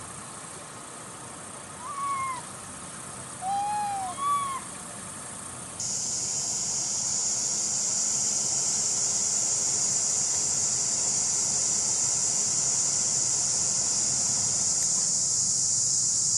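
A macaque gives three short coo calls, each rising then falling in pitch, about two to four and a half seconds in. About six seconds in, a steady high-pitched insect drone starts abruptly and runs on.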